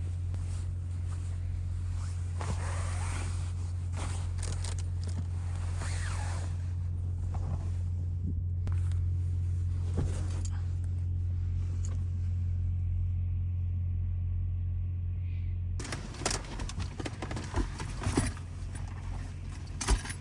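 Steady low rumble of the minivan's engine and road noise inside the cabin, which drops away about sixteen seconds in, followed by a series of clicks and knocks.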